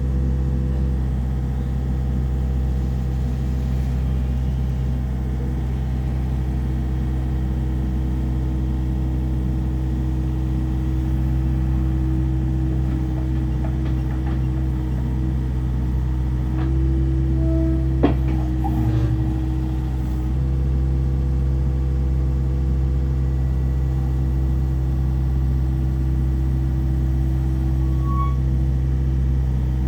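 Kobelco SK50SR-5 mini excavator's diesel engine running steadily, with a single sharp click a little past halfway.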